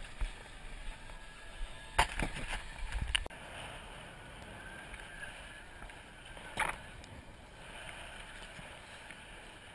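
Steady wash of the sea alongside a fishing boat's hull, with a few sharp knocks in the first three seconds and another about two-thirds of the way through.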